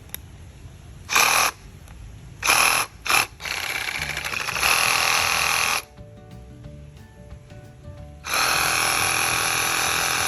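Bossman BRS12-12M 12 V cordless reciprocating saw being run: three short trigger blips, then a run of about two seconds that gets louder partway through, and a steady run of about two seconds near the end. Background music plays underneath.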